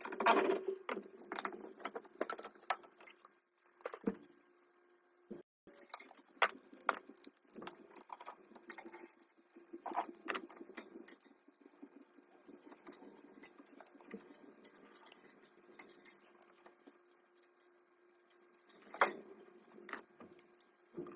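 Hand tools clinking and tapping against metal parts in irregular, scattered clicks, a few louder strikes among them, over a faint steady hum.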